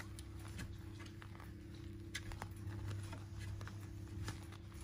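Month-old puppies scuffling and playing in a padded dog bed: scattered soft clicks and scratches from paws and claws on the bedding, over a steady low hum.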